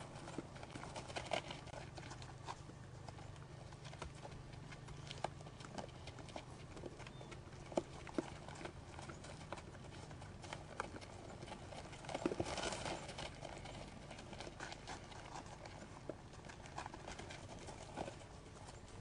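White-tailed deer stepping and stamping on packed snow: scattered hoof knocks and scuffs, with a longer scuffle about twelve seconds in.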